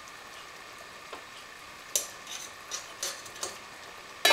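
Kitchen utensils clicking and knocking against dishes, about half a dozen light taps spread out, with one louder clack near the end.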